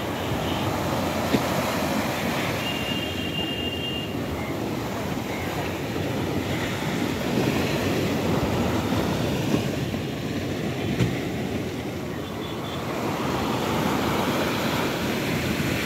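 Surf washing up a sandy beach and draining back: a continuous rushing noise that swells louder twice as waves come in.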